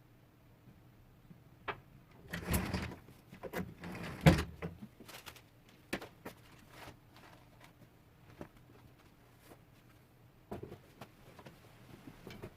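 LED lamp being handled and taken apart by hand: irregular clicks and knocks, with two louder scraping rattles a few seconds in and a further run of small clicks near the end.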